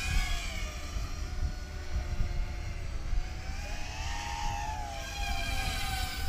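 Small FPV racing quadcopter's electric motors whining overhead, the pitch rising and falling as the throttle changes, over a low rumble.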